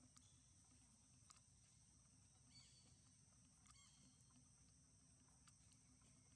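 Near silence: a faint, steady, high-pitched insect drone, with two brief faint chirps near the middle.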